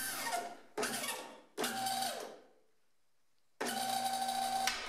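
Two-post vehicle lift's electric hydraulic pump motor switched on and off in short runs, lifting a roughly 3000 lb milling machine. Each run is a steady hum and whine that starts and stops abruptly, with about a second of silence before the last one.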